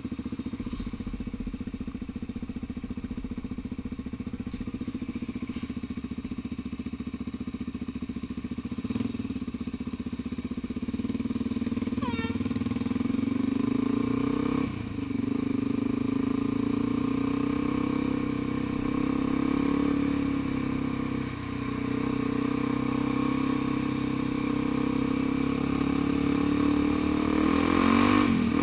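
Dual-sport motorcycle's engine running at low road speed, heard from on the bike; it picks up revs about ten seconds in, with a couple of brief dips later on.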